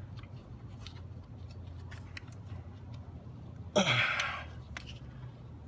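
Small clicks and handling sounds as spark plug wires are pushed onto a distributor cap, over a steady low hum. About four seconds in comes a short, loud hissing burst that falls in pitch.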